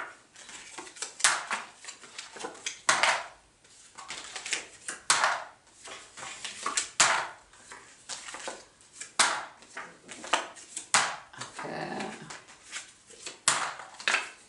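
Wooden clothespins and picture cards being handled and dropped into a small plastic box on a table: a run of short, sharp clattering knocks, one every second or two.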